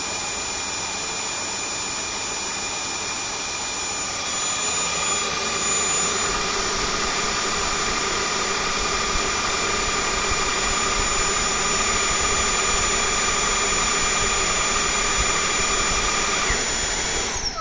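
Tineco Floor One S5 wet-dry vacuum running its self-cleaning cycle in its dock: the motor's steady whine over the spinning roller brush, a little louder after about four seconds. Near the end it winds down with a falling pitch as the cycle stops, halted because the dirty-water tank needs emptying.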